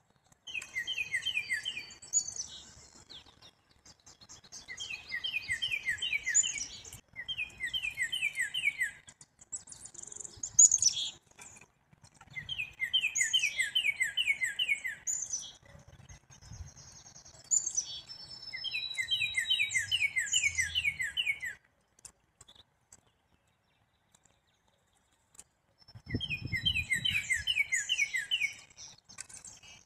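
Small songbirds calling repeatedly, in a series of phrases of quick repeated high notes with short gaps between them. A brief low rumble comes near the end.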